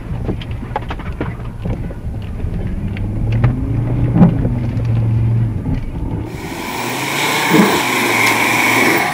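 An off-road 4x4's engine drones at low revs, heard from inside the cabin, with scattered knocks and thuds of mud and branches striking the body. About six seconds in, the sound cuts abruptly to a louder, hissy recording of an SUV working its way through the woods, heard from outside.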